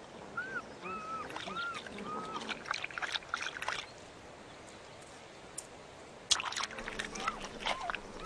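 Cheetah chirping: a quick run of about five short, high chirps in the first two seconds and two more near the end, over rustling and crackling in the grass.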